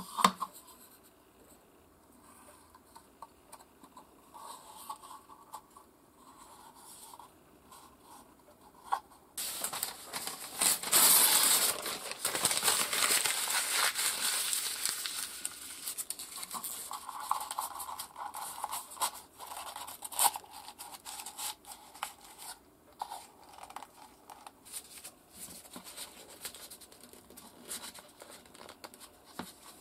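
A light knock as a small wooden piece is set down on a cutting mat, then a large sheet of thin paper rustling and crinkling as it is handled and folded over on the mat. The rustling is loudest for several seconds near the middle, with lighter rustles and small taps after.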